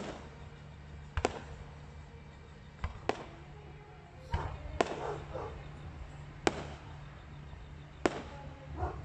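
Aerial fireworks shells bursting: sharp bangs every second or two, about eight in all, over a steady low hum.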